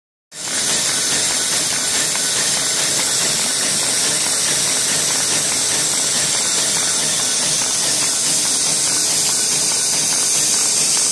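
Printing press running at speed, paper streaming through its rollers: a loud, steady, hissing rush of machinery that starts a moment in and holds even throughout.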